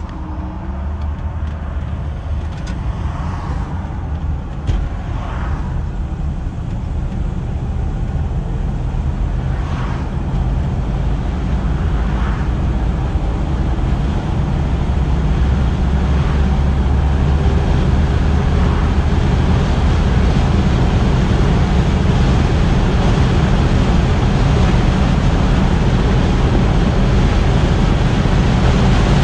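A 1958 Chevrolet Biscayne's 283 V8 and its road noise, heard from inside the cabin while driving. A steady low rumble mixes with tyre and wind noise and grows gradually louder as the car gathers speed on the highway.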